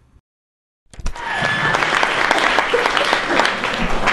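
Audience applauding, the dense clapping starting about a second in after a brief silence and holding steady.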